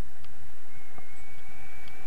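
Wind rushing over the camera's microphone in tandem paraglider flight, a steady loud rumble. A thin high tone comes in under a second in and holds.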